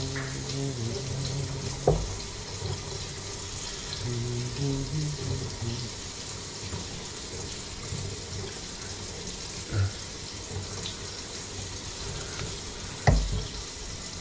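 Water running into a kitchen sink and down its PVC drain and trap, a steady hiss. A few sharp knocks on the pipes or cabinet: one about two seconds in, one near ten seconds, and the loudest near the end.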